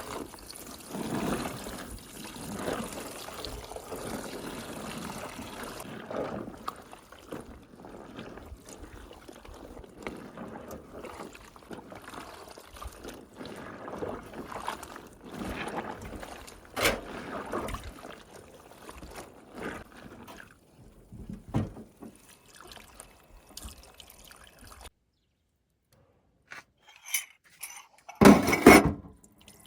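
Water pouring and trickling, with scattered clicks and knocks of handling. Near the end the sound drops out briefly, then a few loud knocks.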